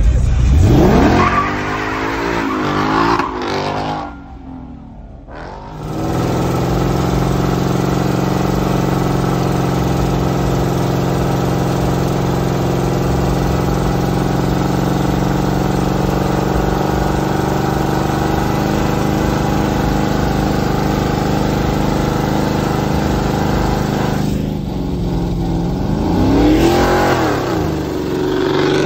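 A car engine revs hard in the first few seconds. Then a Dodge Magnum wagon's engine is held at steady high revs through a long burnout, its rear tyres spinning in smoke on the pavement. Near the end the revs dip and climb again.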